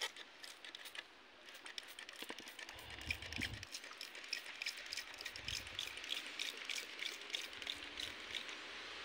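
Toy water gun squirting a thin jet onto packed snow: a fast, irregular patter of small ticks as the stream spatters, from about two seconds in until near the end, with two brief low rumbles along the way.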